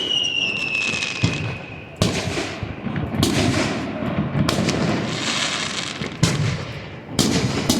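Aerial fireworks shells bursting one after another, sharp bangs each followed by crackle and echo, about six or seven in all. A high whistle falls slowly in pitch over the first two seconds.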